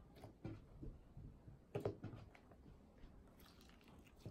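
Glitter slime being kneaded and pulled apart by hand: faint, short sticky squishes and pops, loudest about two seconds in.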